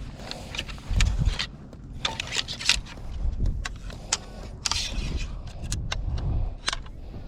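Irregular clicks, clinks and light knocks, as of gear being handled, with low thumps and rumble in between.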